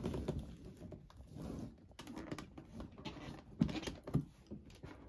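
Hands handling a cardboard laptop box: scattered light taps and rubbing of fingers and long nails against the box, with a couple of sharper knocks a little before the end.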